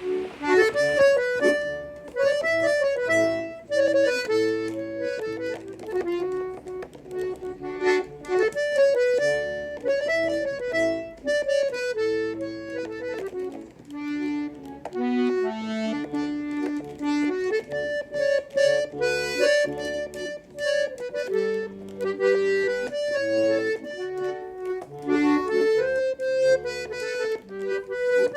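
Accordion playing a quick melody of short, separate notes over low bass notes.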